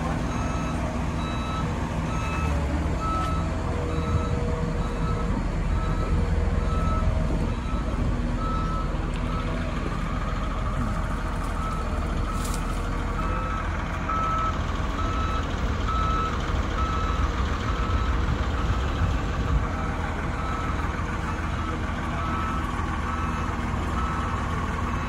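Jacbo Woltman 55DR crawler drilling rig driving onto a low-loader trailer: its diesel engine runs steadily under load while a motion alarm gives evenly spaced beeps.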